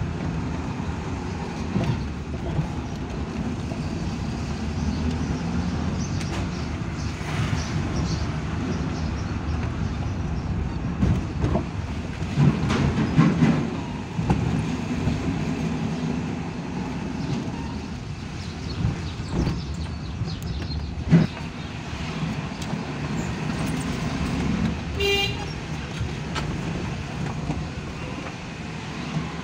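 Suzuki Mehran's small three-cylinder engine and road noise heard from inside the cabin as the car drives slowly, with a few short knocks along the way. Near the end a horn gives one short toot.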